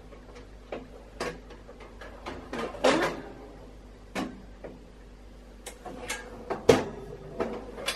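Sage Smart Oven Pro's metal wire rack being slid back into the countertop oven: a string of irregular metallic clicks, knocks and scrapes, with a cluster about three seconds in and the loudest sharp knock shortly before the end.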